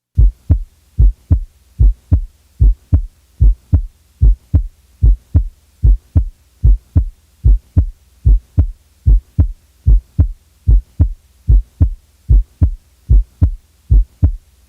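Normal human heartbeat heard through a stethoscope: steady lub-dub pairs of the first and second heart sounds (S1 and S2), a little more than one pair a second, with no murmur between them.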